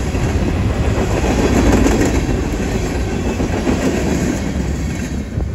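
The last empty trash cars of a CSX freight train rolling past, steel wheels running on the rails with a few clicks over the rail joints. The sound begins to fall away near the end as the final car goes by.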